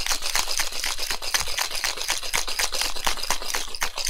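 Ice rattling inside a metal cocktail shaker shaken hard, in a fast, even rhythm of about seven strokes a second, to chill and dilute the drink.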